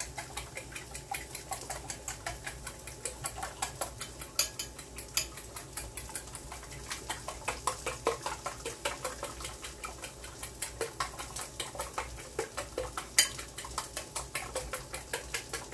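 Two eggs being beaten by hand in a bowl: a fast, steady clicking of the utensil against the sides of the bowl.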